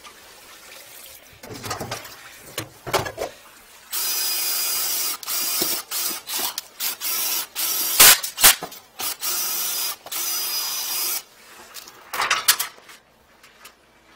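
Drill-driven flex-shaft drain-cleaning cable spinning inside a drain pipe clogged with hardened grease, run in repeated bursts with short pauses, with two sharp clanks in the middle. Quieter handling and rustling before and after.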